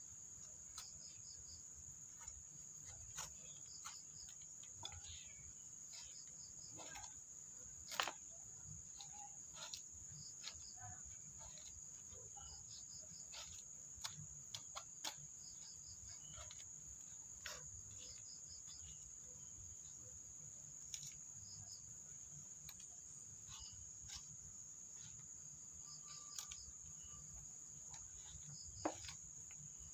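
Steady high-pitched insect trill, crickets or similar, with scattered faint clicks and knocks; the sharpest knocks come about eight seconds in and again near the end.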